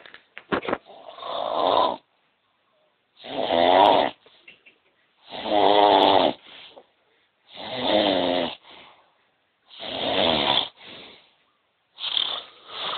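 Loud snoring, a long loud snore about every two seconds, each followed by a shorter, quieter one. A few short sharp clicks come about half a second in.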